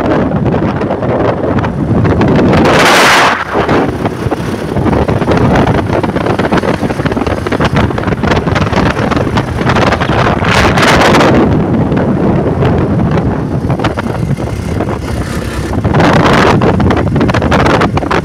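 Motorcycle riding at speed: wind rushing over the microphone over the running engine, swelling louder three times, about three seconds in, around eleven seconds, and near the end.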